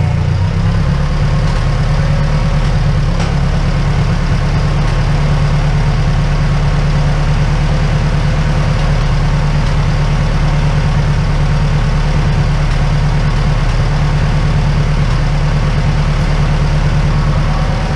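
Case tractor's engine idling steadily.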